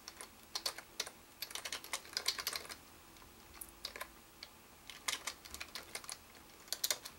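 Typing on a computer keyboard: bursts of quick keystroke clicks with short pauses between words, the longest pause about three seconds in.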